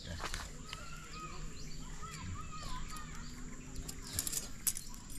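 Hand-held gas torch lighter hissing as it lights split firewood in a fire pit. Birds call repeatedly in the background, and a few sharp clicks come about four seconds in.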